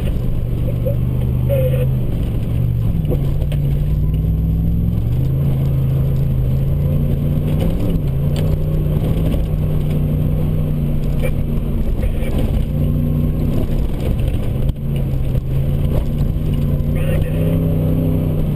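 Ford Raptor pickup's engine running as the truck drives a dirt track, heard from inside the cab, its pitch rising and falling several times with the throttle over a steady low rumble.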